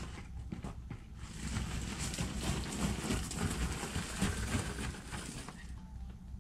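Crushed gravel crunching underfoot as a person walks and shuffles across a gravel driveway, a dense run of small crackles that eases off near the end.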